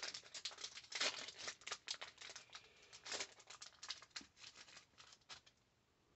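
Metallic foil wrapper of a Pokémon trading-card booster pack being torn open and crinkled by hand: a dense run of crackles that thins out and stops shortly before the end.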